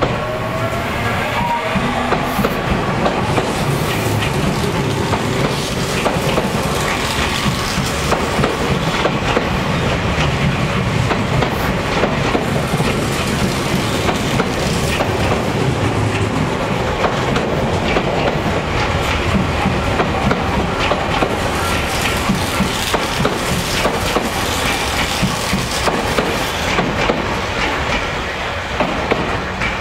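Electric commuter train running past on the station tracks, its wheels clacking steadily over the rail joints, easing off near the end.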